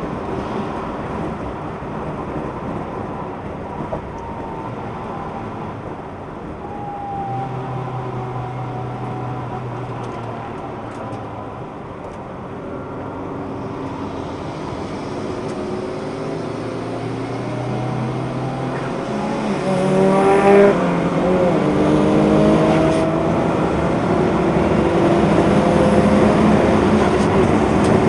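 A car's engine heard from on board during a track lap, revving up and easing off through the gears over steady road and wind noise. It revs harder and louder in the last third.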